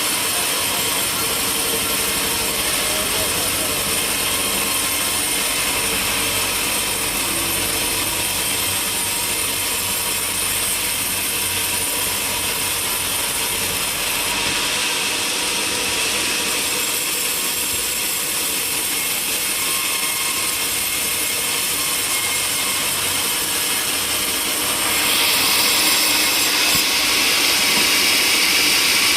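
Sawmill saw running steadily while cutting timber, a continuous mechanical whir. It gets louder and brighter about 25 seconds in.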